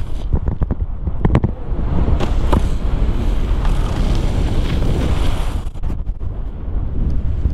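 Wind buffeting an action camera's microphone at speed, with the hiss and scrape of snowboards running over hard-packed snow. A handful of sharp knocks or clatters come in the first second and a half, with two more a little later.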